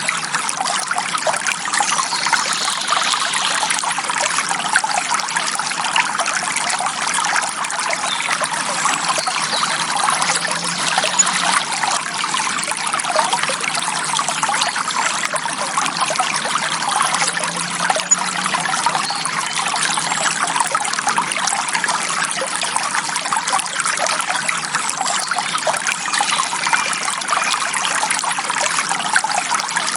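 Clear forest stream flowing and trickling over stones: a steady, bubbling water sound with no other events.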